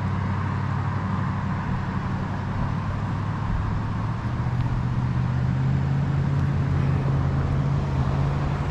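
Car being driven: a steady low drone of engine and road noise, its hum shifting slightly in pitch about three and a half seconds in.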